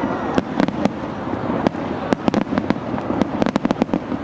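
Fireworks going off: scattered sharp cracks and pops, bunched in quick clusters about two seconds in and again near the end.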